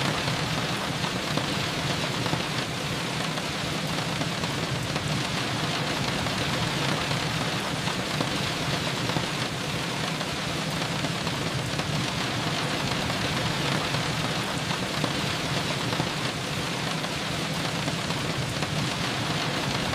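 Steady rain falling, an even hiss with soft patter and no distinct events.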